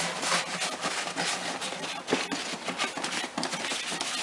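Cloth rag wiping the gasket groove of a plastic intake plenum clean: a run of short rubbing, scuffing strokes.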